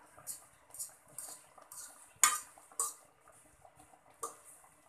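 Metal fork scraping and clinking against a metal wok as pork steak pieces are turned in sauce. About seven quick scrapes, the loudest a sharp clank a little over two seconds in.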